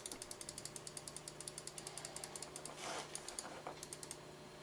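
A computer mouse's scroll wheel clicking rapidly, about ten notches a second for nearly three seconds. A brief soft rustle of handling follows.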